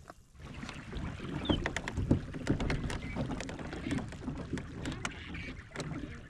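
Irregular knocks, clicks and rattles of gear being handled aboard a plastic fishing kayak, over a low rumble of the hull.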